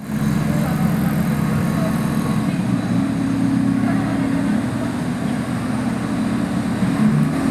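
Diesel engines of construction machinery running steadily on a building site, a continuous low drone.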